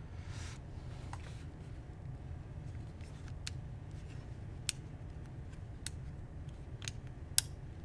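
Small sharp clicks and a brief rustle as hands handle and press at a Sony FX30 cinema camera fitted with its top handle and lens: about six clicks spread out, the loudest near the end, over a low steady hum.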